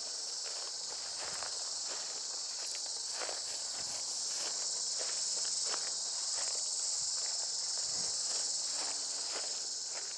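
A steady, high-pitched insect chorus buzzing without a break, with irregular footsteps of someone walking beneath it.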